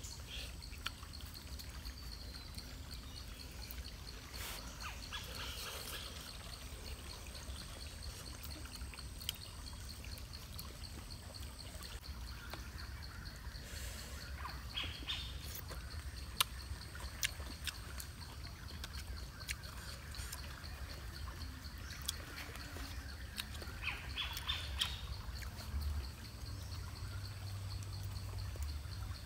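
Rainforest riverside ambience: the low, steady rush of flowing river water with a steady high-pitched tone over it. A few short rising bird chirps come about halfway and again near the end, and sharp clicks are scattered throughout.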